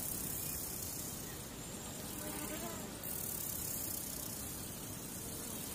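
Steady hiss of background noise from an open audio feed, its high end swelling and fading every second or two.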